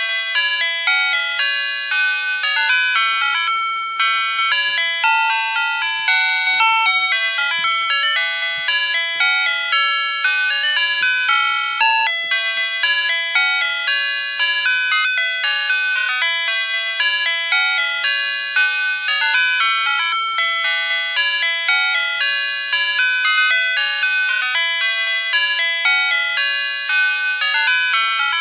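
Emergency-alert alarm tune: a bright, bell-like electronic chime melody of short notes stepping up and down, played on without a break.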